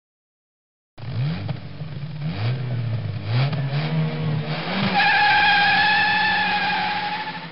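A car engine revving several times, rising and falling in pitch, then a long, steady tyre squeal from about five seconds in that fades out at the end.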